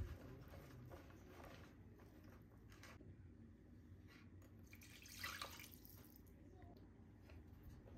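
Faint ticking of a wire whisk beating thick chickpea-flour batter in a plastic bowl, with a glass of water poured into the batter about five seconds in, the pour being the loudest sound.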